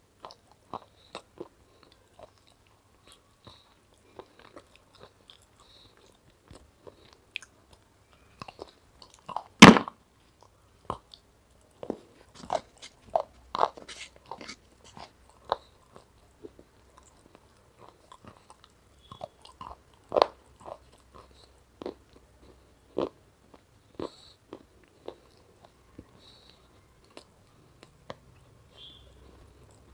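Close-up biting and crunching of hard, frozen ice-cream-coated pieces: scattered sharp cracks between chewing, the loudest about ten seconds in, with a quicker run of crunches from about twelve to fifteen seconds.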